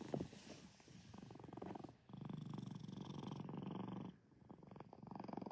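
Domestic cat purring in fast, rhythmic runs of about two seconds, with short pauses between them.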